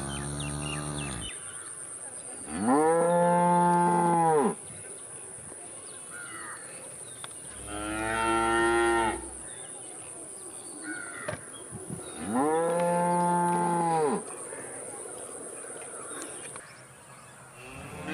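Cows mooing: one moo ends about a second in, then three long moos of about two seconds each follow a few seconds apart. Each rises a little in pitch at the start and falls away at the end.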